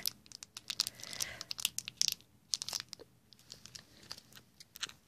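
Clear plastic wrapper crinkling and crackling as it is handled, a quick run of crackles that thins out after about three seconds.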